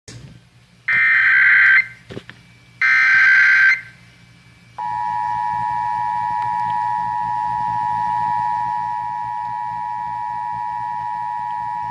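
Emergency Alert System broadcast: two buzzy, screeching bursts of SAME header data, each about a second long, followed about five seconds in by the steady two-tone EAS attention signal, which keeps sounding. It is the start of a national EAS test.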